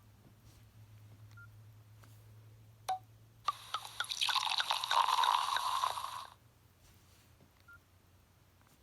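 Nokia 6681 phone speaker playing a short sound-effect ringtone: a single click, then about three seconds of rapid clicks over a hissing noise that cuts off sharply.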